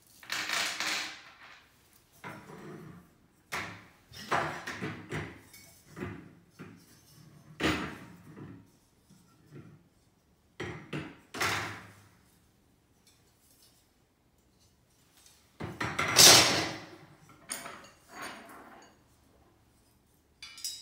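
Black metal rods and frame pieces of a mesh document tray clattering and knocking against each other and on a wooden desk as they are handled and set down: a run of irregular knocks and rattles, the loudest about sixteen seconds in.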